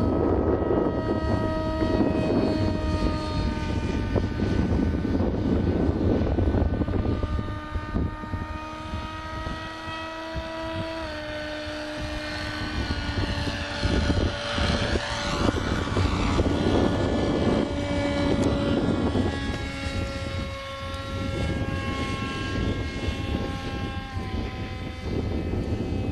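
Electric RC model jet in flight, its 2212 brushless motor and pusher propeller giving a steady multi-toned whine. The pitch steps down partway through and again later, with a louder rushing swell in the middle.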